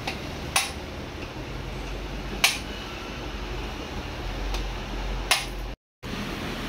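Small metal valve parts clicking sharply as they are set by hand into the spring pockets of a Mitsubishi 4M40 aluminium cylinder head: three distinct clicks a couple of seconds apart, with a few fainter taps and a low steady hum behind them.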